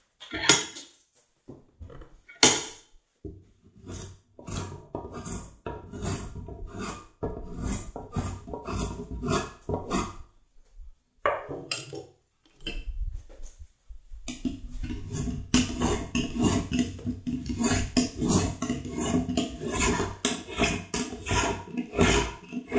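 Hand-tool strokes shaving and scraping the edge of a wooden Windsor chair seat, a quick run of rasping strokes about two to three a second, broken by short pauses around the middle.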